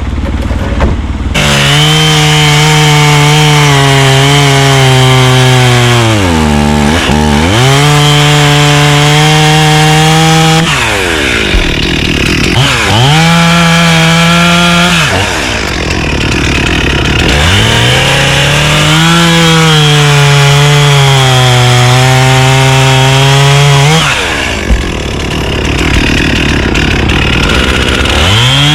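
Two-stroke chainsaw running at high revs as it saws through wood. Its pitch drops sharply and climbs back several times as the throttle eases off and opens again.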